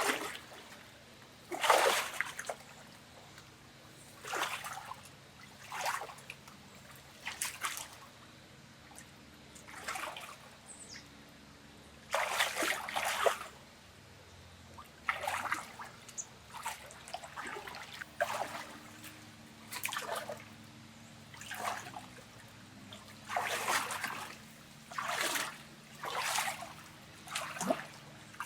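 Water splashing in short, irregular bursts about every one to two seconds, with trickling between them.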